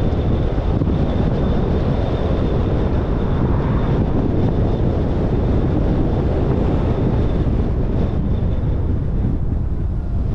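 Steady road and wind noise of a car driving, a dense low rumble with a faint thin whine above it.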